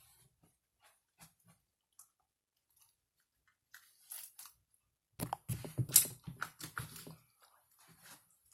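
Slime being squished and worked by hand: scattered sticky clicks and pops, with a denser run of crackling from about five to seven seconds in.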